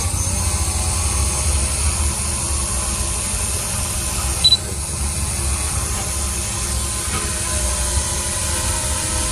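Heavy diesel machinery running steadily with a deep rumble, with one brief high squeak about halfway through.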